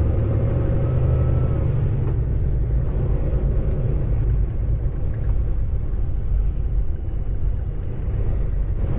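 Semi truck's diesel engine running as a steady low rumble. Its pitched engine note is clearest in the first second or so, then evens out.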